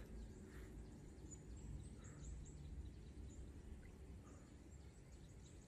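Near silence: quiet outdoor ambience with a faint low rumble and scattered faint, high bird chirps.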